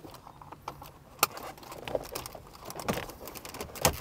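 Scattered sharp clicks, knocks and light rattling of hard plastic and metal as the car radio unit and its wiring are pushed back into the dashboard, with one sharp click about a second in and another near the end.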